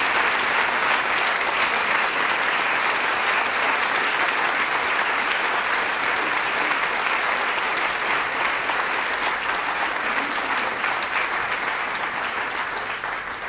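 Theatre audience applauding: dense, steady clapping from many hands, dropping away at the very end.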